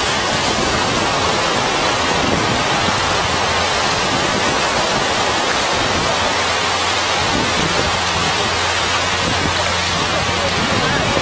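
Steady rush of breaking surf mixed with wind noise on the microphone, an even hiss with no separate events.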